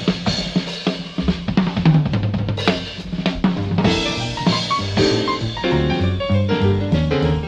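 A small jazz band playing live, with the drum kit to the fore: rapid snare, bass drum and cymbal strokes over piano and double bass.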